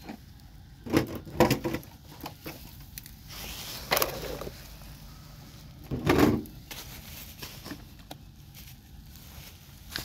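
Toy trucks being moved about on sand: a few short knocks and scrapes, in a cluster about a second in, once at about four seconds, and loudest around six seconds.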